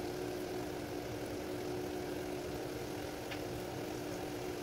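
Egg-dipped potato kabab shallow-frying in hot oil in a pan, a steady sizzle, with a steady low hum beneath it.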